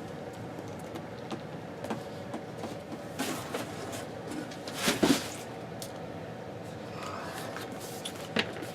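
Packaging being handled: a few short rustles and knocks over a steady low hum, the loudest about five seconds in.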